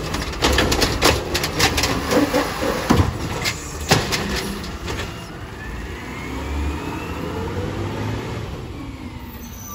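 Automated side-loader garbage truck: the lift arm clanks and knocks as it shakes out and lowers the cart, with sharp bangs about three and four seconds in. Then the truck's diesel engine runs steadily as it pulls away, with a rising whine.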